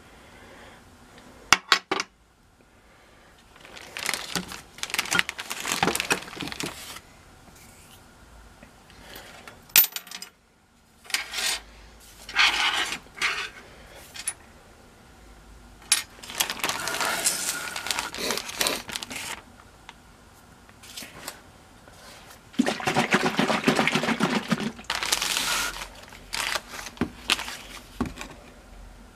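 Small cast-iron and steel stapler parts clinking as they are handled and dropped into a plastic freezer bag, with repeated bursts of plastic-bag rustling. Near the end comes a longer, fuller stretch that fits liquid paint stripper being poured into the bag.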